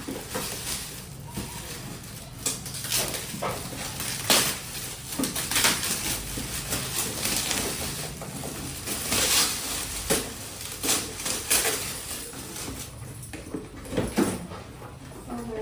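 Gift packaging being handled and unwrapped: irregular crinkling, rustling and tearing of wrapping, with scattered knocks and clinks of the items inside.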